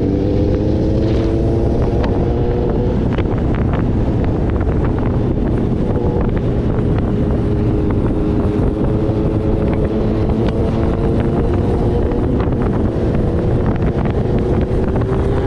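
Motorcycle engine under way, heard from the rider's position with heavy wind buffeting on the microphone. The engine's pitch climbs during the first few seconds and again near the end, holding fairly steady in between.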